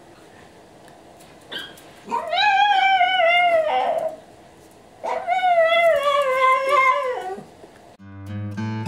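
A pet animal's two long, wavering cries, each about two seconds, falling in pitch at the end. Acoustic guitar music comes in near the end.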